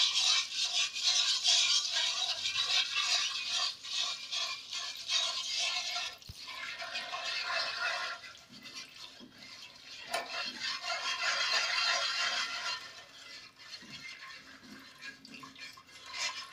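A wire whisk beating in a non-stick pot, in a steady rhythm of quick strokes, as milk is worked a little at a time into an oil-and-flour roux to make a white sauce. The whisking eases off briefly about six seconds in and again near the end.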